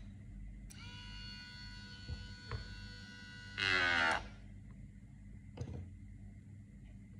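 Small brushed DC motor starts with a click and runs with a steady whine. About three and a half seconds in it is loaded by a roll of tape pressed against its spinning shaft, giving a loud, brief squeal that falls in pitch. About five and a half seconds in a click cuts the motor off, the overload protection tripping.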